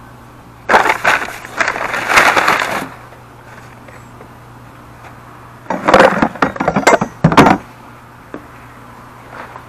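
Brown kraft packing paper rustling and crumpling as it is pulled out of a cardboard box, in two loud bursts: one about a second in, lasting two seconds, and another about six seconds in as more wrapping comes out.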